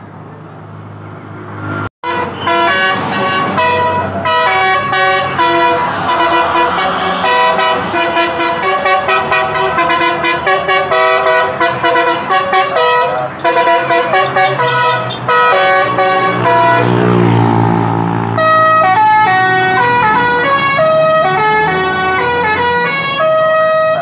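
Basuri multi-tone "telolet" bus air horn playing quick melodic runs, note after note in rapid steps, almost without pause. Before it, about two seconds in, there is a sudden break, and before that only quieter road traffic.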